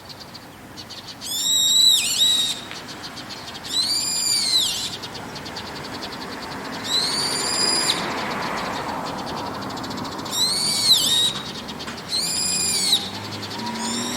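Brown-eared bulbul calling: five shrill, drawn-out calls of about a second each, every one rising and then falling in pitch, a few seconds apart.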